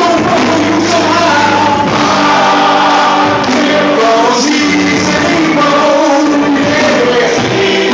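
Male gospel chorus singing together in harmony, several held notes at once.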